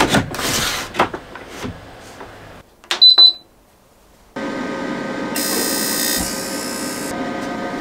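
Fan heater being switched on: a short electronic beep from its control panel, then about a second later its fan starts and runs steadily with a hum. A loud hiss joins for about two seconds as it starts up. Some handling clatter comes first.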